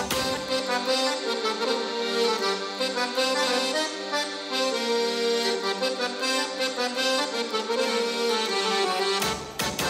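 Egyptian baladi music: an accordion plays a held, ornamented melody with no drums behind it, until percussion strikes come in near the end.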